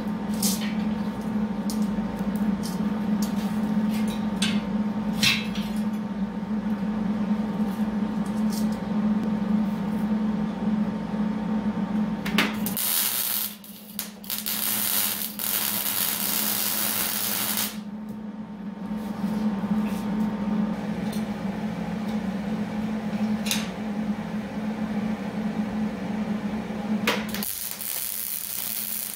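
Steel pieces clink against each other over a steady electrical hum. Then comes arc welding on steel rail: a crackling hiss for about five seconds near the middle, and again near the end.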